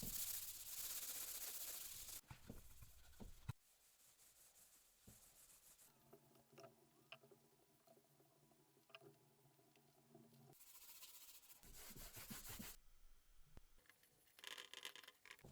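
Faint rubbing in short spells, like cloth or sandpaper worked by hand over a surface. A steady low hum runs for a few seconds in the middle and cuts off suddenly.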